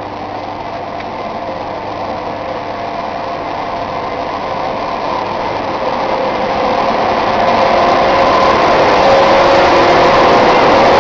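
ChS4t electric locomotive hauling a passenger train as it pulls out of the station, a steady whine over rolling noise that grows steadily louder as it draws nearer.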